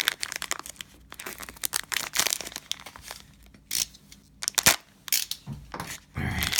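Plastic cello wrappers of trading card packs crinkling and tearing as the packs are ripped open, in irregular short bursts.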